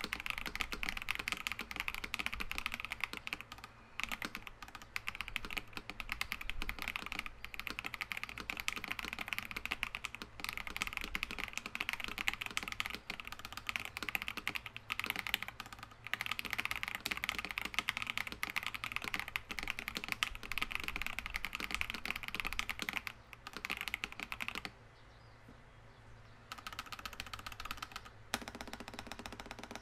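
Custom Ikki68 Aurora R2 mechanical keyboard with lubed Green Jacket tactile switches, an aluminum plate and PBT keycaps, typed on continuously at a steady pace. Typing stops for about two seconds near the end, then resumes.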